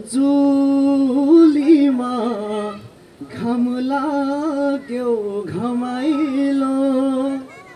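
A solo voice singing without words or accompaniment, opening with long held notes in two drawn-out phrases ornamented with wavering turns, with a short breath between them about three seconds in.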